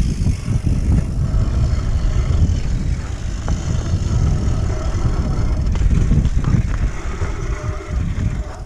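Mountain bike rolling fast down a leaf-covered forest trail: wind buffeting the camera and tyres rumbling over the dirt. Under it runs a faint, steady whine from a disc brake whose pads are worn down to metal and scraping the disc.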